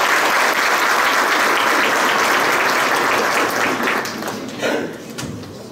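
Audience applauding steadily, then dying away about four to five seconds in, with a brief thump as it fades.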